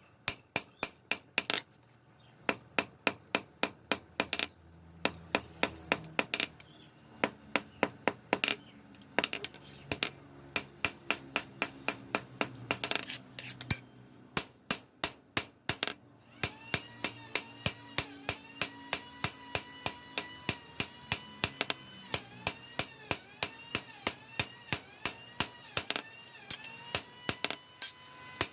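Hand hammer striking steel over and over, about three blows a second in quick runs with short pauses. From about halfway a metallic ring carries on between the blows.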